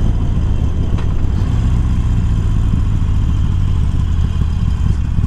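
Harley-Davidson Sportster Iron's V-twin, converted to 1200 cc with a stage 1 tune and Screamin' Eagle slip-on mufflers, running steadily while the bike is ridden at road speed.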